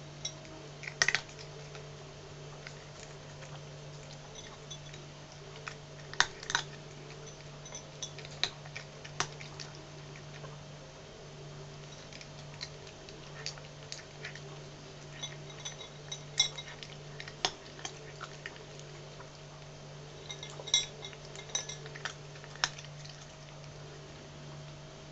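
Cat crunching dry kibble off a ceramic saucer: irregular sharp crunches and clinks of teeth and pellets against the dish, a few ringing briefly, loud enough to sound like chewing bones. A steady low hum runs underneath.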